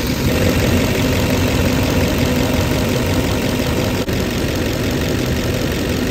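2007 LBZ Duramax 6.6-litre V8 turbodiesel idling steadily, heard up close in the engine bay, run to check for fuel leaks just after the fuel rail pressure relief valve was replaced with a race fuel plug.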